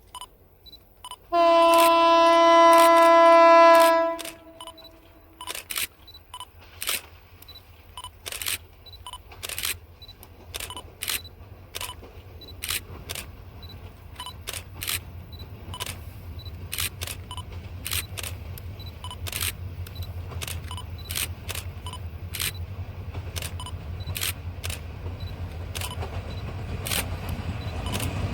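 Camera shutters click over and over at an irregular pace. A diesel locomotive's horn sounds one long chord about a second and a half in, lasting a little over two seconds. A low locomotive engine rumble grows louder towards the end as the train approaches.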